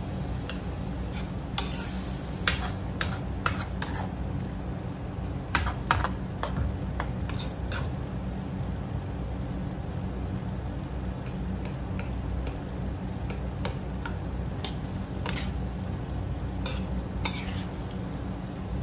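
A metal spoon stirring a wokful of pork and vegetables, with irregular clicks and scrapes of metal on the wok. A steady low hum runs underneath.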